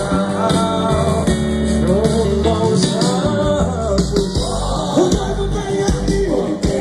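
Live band playing a Christian worship song through a loud concert sound system, with singing over bass and guitars.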